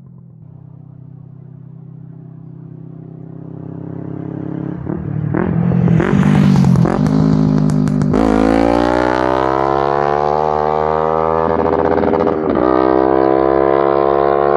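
2006 Kawasaki ER-5's parallel-twin engine through a shortened stock muffler. The exhaust grows louder over the first several seconds, then climbs steadily in pitch as the bike accelerates, with a brief dip about twelve seconds in.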